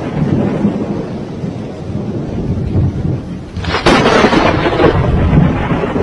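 Loud, rough, low rumbling noise that swells louder about four seconds in.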